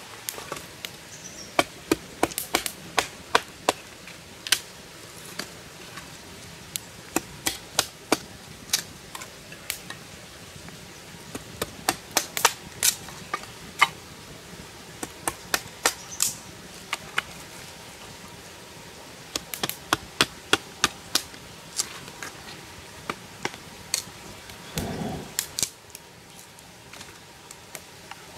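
Machete chopping and trimming a wooden stick on a stone: a long run of sharp, irregular knocks, some coming in quick clusters.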